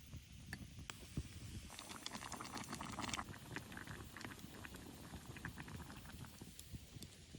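Light crackling and popping from a small homemade camp stove in use. The crackle is densest for about a second and a half near the start, then thins to scattered pops.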